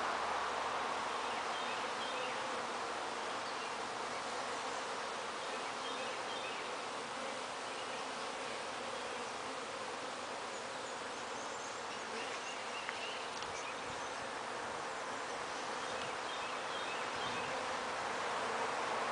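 A swarm of honey bees clustered on a tree branch, buzzing as a steady, continuous hum.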